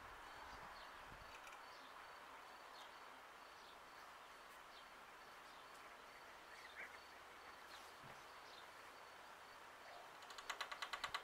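Near silence: faint outdoor ambience with faint, high bird chirps roughly once a second. Near the end comes a louder rapid rattle of about ten pulses a second, lasting about a second and a half.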